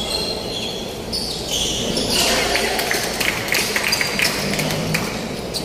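Indoor basketball game on a hardwood court: a basketball bouncing several times during the middle of the stretch, with short high squeaks from sneakers.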